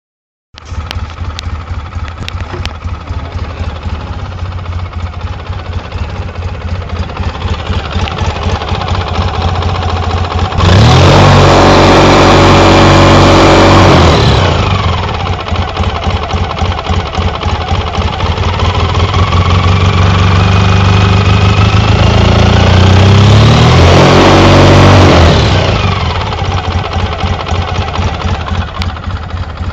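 Engine idling with a rapid, even pulse, revved twice: a sudden rev held for a few seconds about a third of the way in, then a slower climb in pitch that drops back to idle near the end. It is recorded to show an engine knock.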